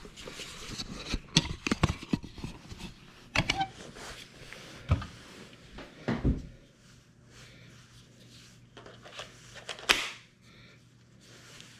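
Scattered clicks and knocks of the Stihl GTA26 battery mini chainsaw and its battery being handled and fitted together. The loudest is a single sharp click about ten seconds in.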